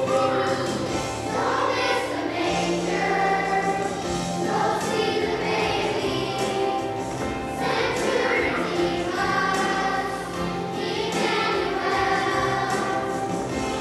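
Children's choir singing a song with instrumental accompaniment; a steady bass line comes in about two and a half seconds in.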